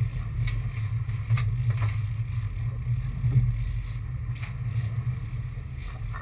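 Sportfishing boat's engines running with a steady low drone, heard from inside the cabin, with a few short clicks and knocks scattered through it.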